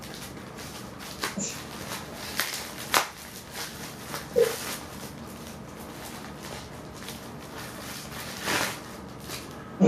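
Scattered rustles and knocks of gift packaging being handled while a box of presents is unpacked, with one brief squeak about four and a half seconds in.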